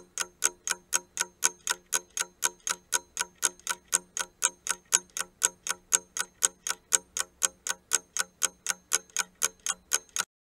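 Ticking-clock sound effect for a countdown timer: quick, even ticks, about four a second, which stop about ten seconds in as the timer reaches zero.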